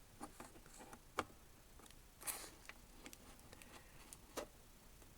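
Near silence: the switched-on AM/FM record player's speakers give out no sound at all, a sign that the set is dead. A few faint clicks and handling noises break the quiet, the sharpest about a second in.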